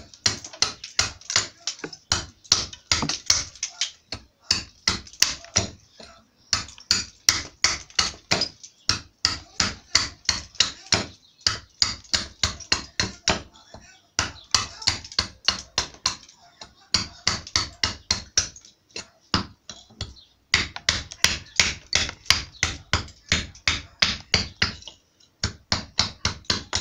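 Small hand hatchet chopping at a small block of wood, quick sharp strikes about three or four a second, in runs of a few seconds with short breaks between them, as the block is thinned down by hand.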